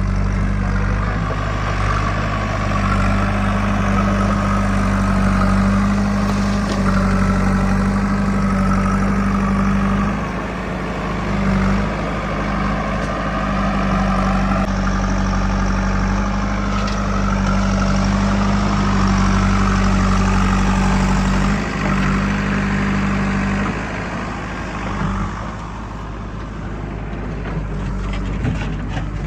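Heavy diesel machinery engine running steadily and loud, its note shifting and easing off briefly about a third of the way in and again near the end.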